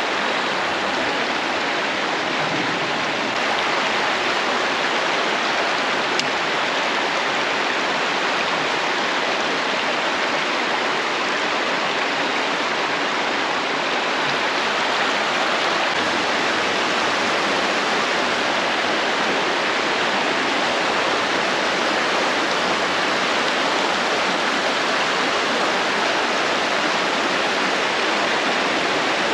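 Shallow creek water rushing over a rocky riffle: a steady, even sound of running water.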